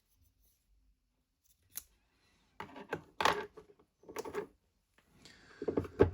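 Small metal lathe accessories being handled: a few short clinks and knocks about halfway through, then a longer scrape and clatter near the end as a part is slid and set down.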